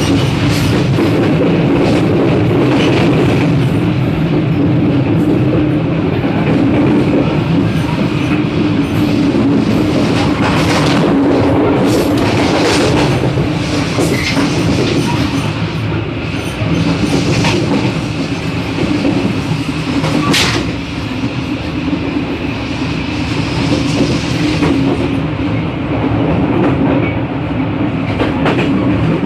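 Passenger train running along the track, heard from the open vestibule between coaches: a loud, steady rumble of wheels on rail with scattered clacks over the rail joints, one sharper clack about twenty seconds in.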